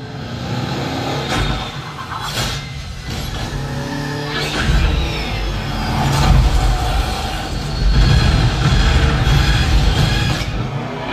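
Action-film trailer soundtrack over cinema speakers, recorded on a phone: car engines revving and accelerating over loud music, with several sharp hits along the way.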